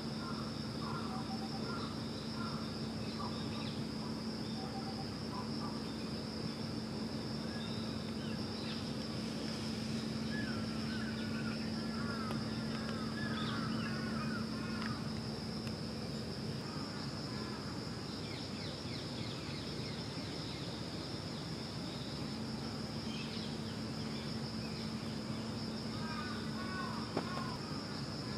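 Outdoor ambience: a steady high insect drone over a low steady hum, with quick bird chirps in short runs, most around the middle and again near the end.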